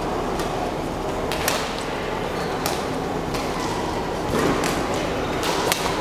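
Badminton rally: several sharp racket-on-shuttlecock hits, roughly a second apart, over the steady murmur of a large seated crowd.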